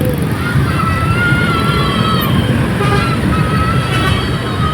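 Road traffic going past: vehicle engines rumbling steadily, with a faint wavering high tone over them at times.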